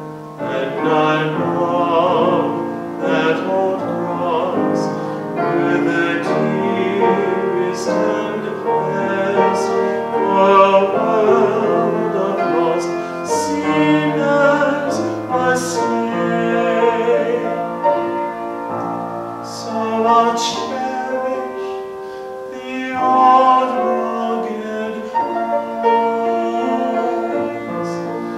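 A solo voice singing a song with piano accompaniment, held notes and a moving melody.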